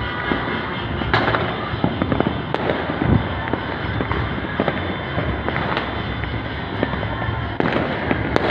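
Fireworks and firecrackers going off at a distance all over the city: a steady crackling din broken by frequent sharp bangs.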